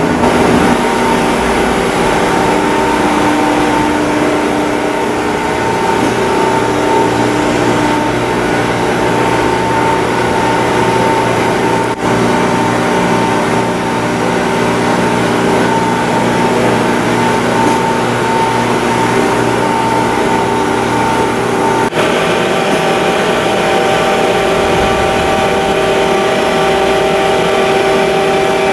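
CNC machine tool running under power: a steady mechanical hum and whine made of several constant tones. The tones shift abruptly about 12 and 22 seconds in.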